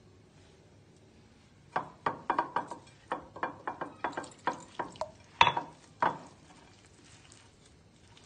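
Hand mixing flour and liquid into a crumbly dough in a cut-glass bowl, fingers knocking and clinking against the glass: about a dozen light knocks, roughly three a second, starting about two seconds in and stopping about six seconds in, the loudest near the end.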